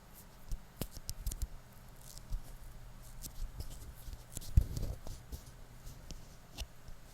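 Close-miked handling sounds made for ASMR: light irregular clicks, taps and scratches, with one louder low bump a little past halfway.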